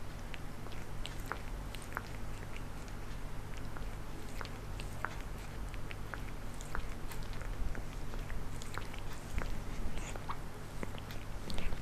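Domestic cat grooming itself, its tongue licking and nibbling its fur in quick, irregular clicks, over a steady low hum.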